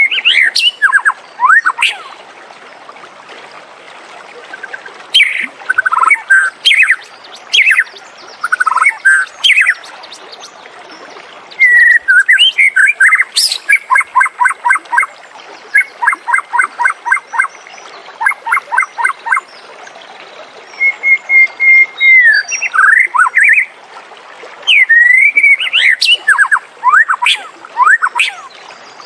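White-rumped shama singing: loud phrases of varied whistles and fast runs of repeated notes, separated by short pauses.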